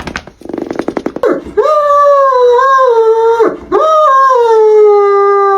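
Dog howling: two long, drawn-out howls, each sliding slowly down in pitch, the first starting after a brief run of rapid pulsing about a second in. These are the distress howls of a dog frightened at the vet.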